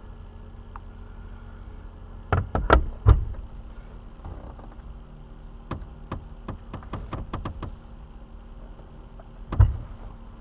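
Hand tools knocking and clicking on metal parts of a van's steering column being taken apart: three sharp knocks a little over two seconds in, a run of light quick clicks in the middle, and one more sharp knock near the end.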